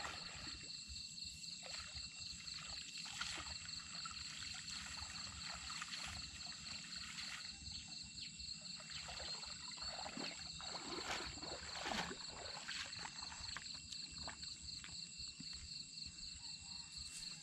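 Water sloshing and splashing at irregular intervals as a man wades in a shallow pond and works a cast net, loudest about two-thirds of the way through. Insects trill steadily at a high pitch behind it.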